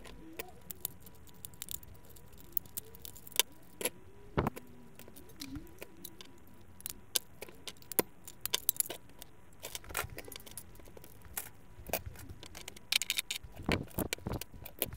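Small plastic and metal printer parts clicking and rattling as they are handled and taken apart: scattered sharp clicks, with a denser rattle near the end.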